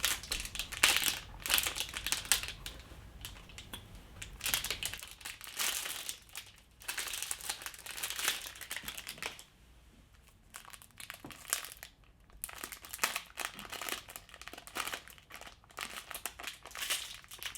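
Plastic wrapper of a fruit roll snack crinkling and rustling in irregular bursts as it is opened, with a brief lull about halfway through.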